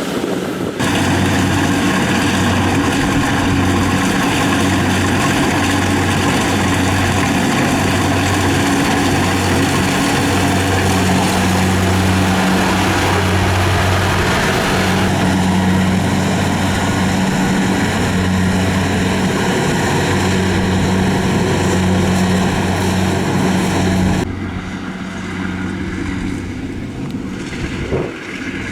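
Rice combine harvester running steadily: a low engine hum under a loud whirring of its machinery. The sound changes abruptly about a second in, and drops in level near the end.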